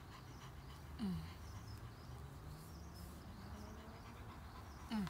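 A large dog gives two short, low groans that fall in pitch, one about a second in and a smaller one near the end, while being massaged. Faint background noise runs between them.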